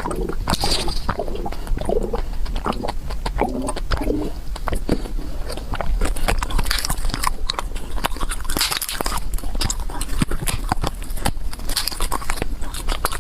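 A person eating fast, close to the microphone: continuous chewing and biting with quick wet mouth clicks and some crunchy bites, and a few short hissy sucking sounds.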